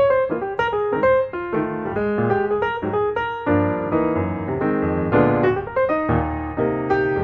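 Background piano music: a run of quick notes over sustained chords.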